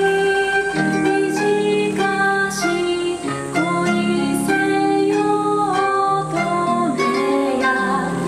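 Yosakoi dance music track: a plucked-string melody over held notes.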